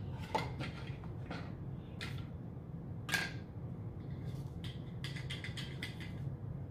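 Light clicks and taps of plastic toy dressing bottles being handled, set down on the table and picked up, with a louder knock about three seconds in and a quick run of small clicks near the end. A steady low hum runs underneath.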